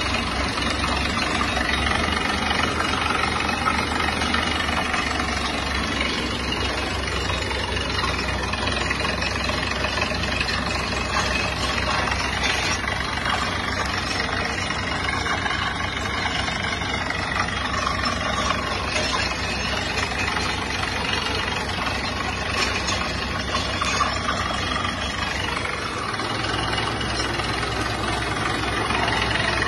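Tractor-mounted DTH drilling rig at work: its engine and air compressor run steadily while compressed air rushes up the borehole, blasting out rock dust and cuttings as the hole is drilled.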